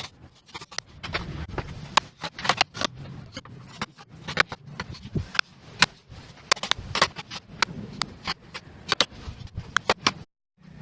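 Irregular sharp knocks and clicks, sometimes several a second, over a low hum, cutting out briefly near the end.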